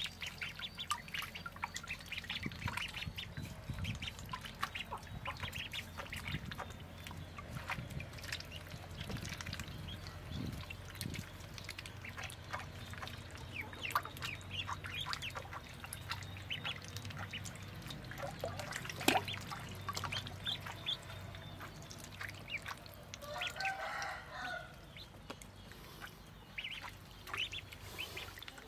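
A brood of ducklings peeping over and over while they swim and dabble in a water tub. One sharp click comes about two-thirds of the way through, and a longer, lower call comes near the end.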